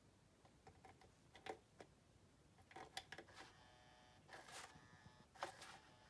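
A cat clicking and tapping at the button of a battery-powered cat toy, then about halfway through the toy's small motor starts with a faint steady whine, with a few more clicks over it.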